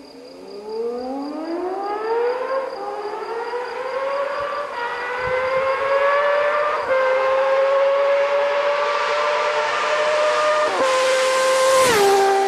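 High-revving performance engine accelerating hard through the gears: a high, siren-like note climbs steeply, then drops at each upshift and climbs again, several times over.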